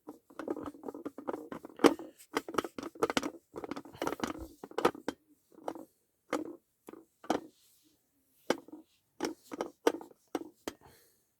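Scrubbing a Micro Hawk fire alarm light clean: a run of short, uneven rubbing strokes that stops near the end.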